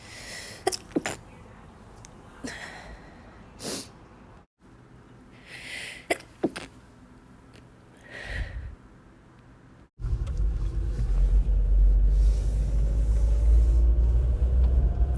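A woman sneezing several times across short separate clips: sudden sharp sneezes, some led in by a quick intake of breath. Over the last third a steady low rumble takes over.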